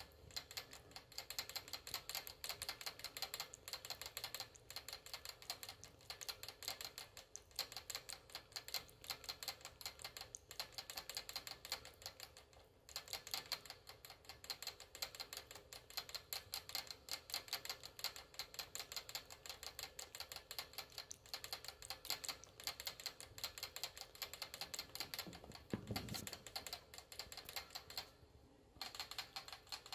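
Pet rat licking at the metal sipper spout of a cage water bottle: rapid, steady clicking that breaks off briefly twice, about halfway through and near the end.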